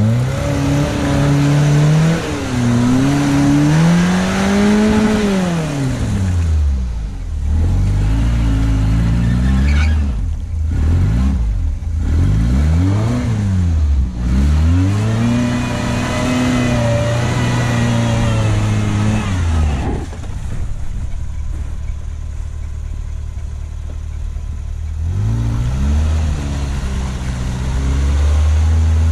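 Suzuki SJ410 off-roader's engine revving up and down over and over as it works through deep snow and mud ruts. The revs hold lower and steadier for a few seconds past the middle, then climb again near the end.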